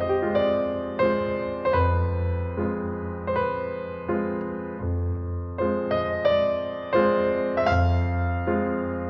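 Slow piano music: single struck notes in a melody over a low bass note that changes about every two and a half seconds.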